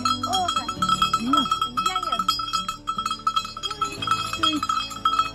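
A sheep's neck bell clanking quickly and continuously as the sheep moves about.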